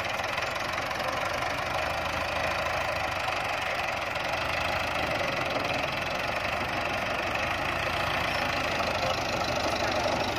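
Massey Ferguson 375 tractor's diesel engine running steadily, with a knocking diesel clatter.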